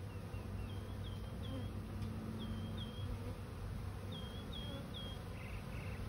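Honey bees buzzing as a steady hum around a colony's exposed comb, with short high chirps coming in runs of two or three.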